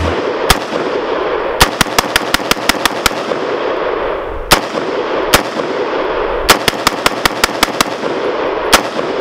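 AR-15 pistol firing semi-automatic: single shots spaced out, and two quick strings of about eight shots each at roughly five shots a second.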